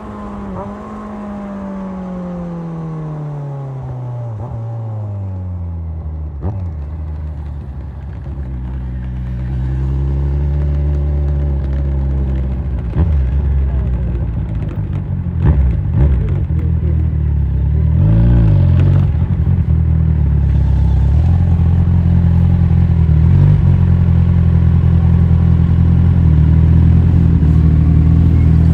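Kawasaki Z1000 inline-four motorcycle engine: its revs fall away over the first few seconds as the bike slows, then it runs low with a few sharp clicks. It picks up again, rising and dropping, and settles into a steady, louder run.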